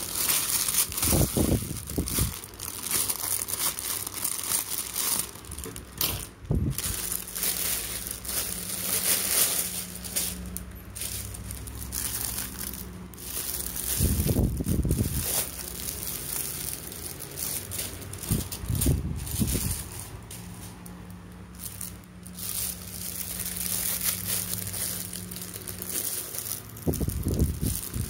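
Plastic crinkling and rustling as a grey plastic mailer bag and the clear plastic sleeve of a barber's cape are handled and turned over, with a few dull bumps along the way.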